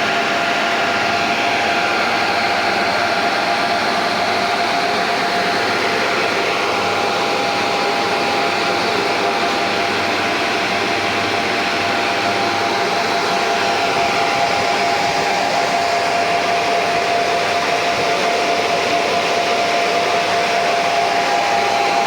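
Steady whooshing machine noise, like a fan or blower running, with a steady whine over it that shifts slightly in pitch a few times.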